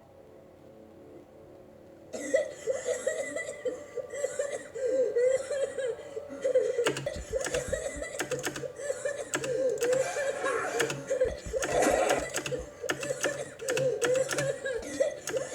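People laughing, starting suddenly about two seconds in and going on in quick repeated bursts.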